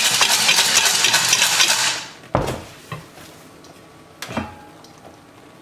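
Mussels rattling in a lidded enamelled pot shaken by hand, a dense clatter of shells for about two seconds. Then the pot is set down on a glass hob with a sharp knock, followed by a second knock from the lid a couple of seconds later.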